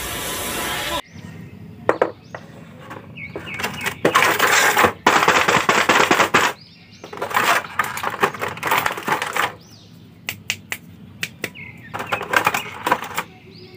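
Clear plastic blister packaging crinkling and crackling as action figures are pulled out of the tray by hand, in irregular bursts of sharp clicks and rustles. It opens with a second of film soundtrack that cuts off abruptly.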